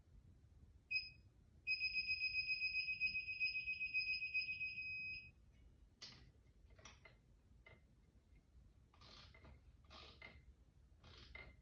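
Digital torque wrench beeping as a head bolt is torqued to 25 foot-pounds: a short beep about a second in, then a steady high beep for about three and a half seconds as the set torque is reached. After that come a few light clicks and clatters of the wrench and socket.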